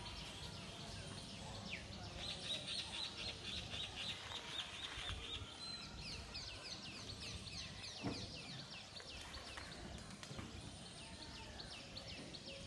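Birds calling in a long run of short, high chirps, each dropping in pitch, repeating a few times a second over a low, steady outdoor background. A single brief knock sounds about eight seconds in.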